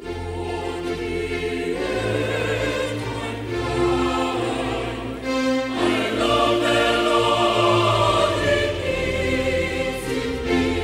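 Mixed choir of men and women singing sustained chords, with vibrato on the held notes; the sound swells louder about two seconds in and again about four seconds in.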